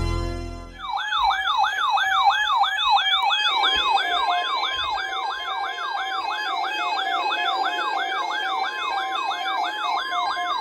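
Electronic alert siren yelping, a fast rise-and-fall in pitch repeated about two to three times a second, the alarm sounded for an emergency weather alert. It starts about a second in, as organ music fades, and near the end gives way to a short steady beep tone.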